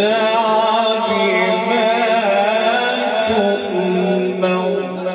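A man reciting the Quran in the melodic tilawat style, drawing out one long ornamented note whose pitch wavers up and down.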